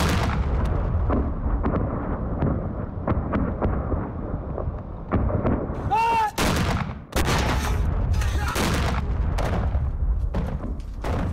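Mortar and gunfire in a firefight: repeated sharp shots and blasts over a steady low rumble. One loud shout comes about six seconds in.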